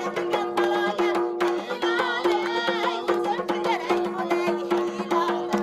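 Traditional Central Asian folk music: a drum beating a steady rhythm under a held low note, with a voice singing a bending melodic line about two seconds in.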